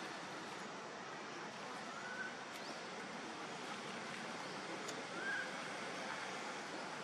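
Two short, faint rising-and-falling coo calls from a baby monkey, about three seconds apart, over a steady outdoor hiss.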